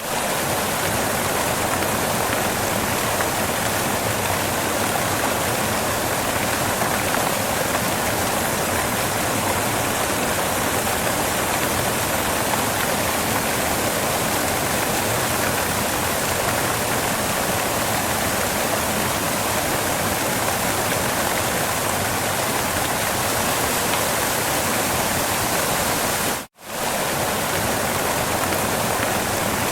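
Waterfall: a steady, even rush of falling water, with one brief cut to silence about three-quarters of the way through.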